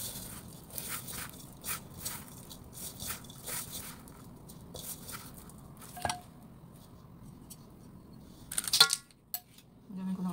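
Hands mixing soft bread dough in a stainless steel bowl: irregular squishing, scraping strokes for the first few seconds, then quieter. A single sharp clink comes near the end.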